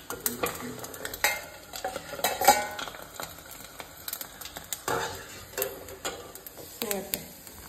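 Hot oil sizzling and spitting with scattered sharp pops under a steel pan lid held down over the pan, the lid clinking against the pan now and then. The spattering is the oil crackling up and out as the food fries, which is why the lid is kept on.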